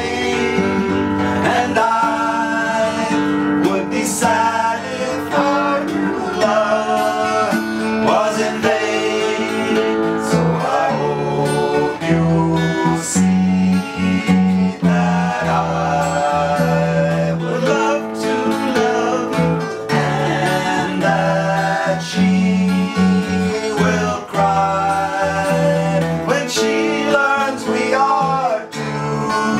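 Acoustic guitar and electric bass playing a slow pop ballad with three voices singing together.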